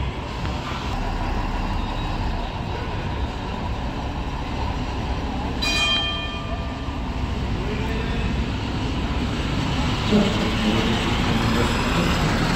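Ikarus articulated bus pulling away and driving past close by, its diesel engine running with a low rumble that grows louder as it nears. About six seconds in, a horn gives one short toot.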